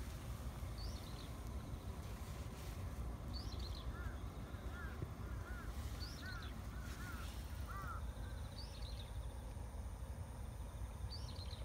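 Birds calling over a steady low rumble: a short, high, falling call repeats about every two and a half seconds, and a run of lower arched calls comes between about four and eight seconds in.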